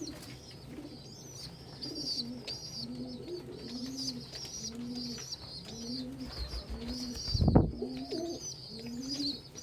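Pigeons cooing, a regular run of short low coos nearly every second, over continuous high-pitched peeping from squabs. One heavy thump about seven and a half seconds in.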